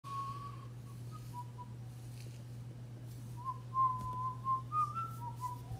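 A man whistling a short tune through pursed lips: a few notes at first, a pause, then a quicker run of notes from about three and a half seconds in that climbs and falls back. A steady low hum lies underneath.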